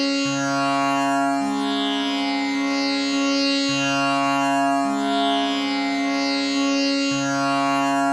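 Tanpura drone with its Sa set to C sharp: the strings are plucked in an unbroken cycle that repeats about every three and a half seconds, a lower note changing within each round beneath a steady buzzing ring.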